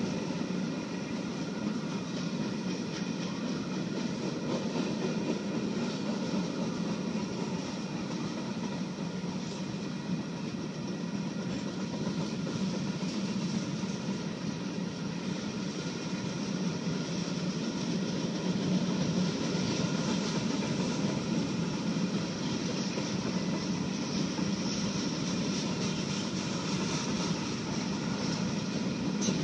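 Freight cars of a Union Pacific freight train rolling steadily past: a continuous rumble and rattle of steel wheels on rail, with thin steady high-pitched tones ringing above it.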